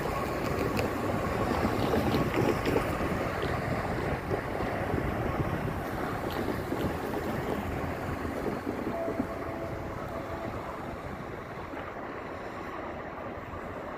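Low rumble of a distant freight train, fading slowly, mixed with wind noise on the microphone.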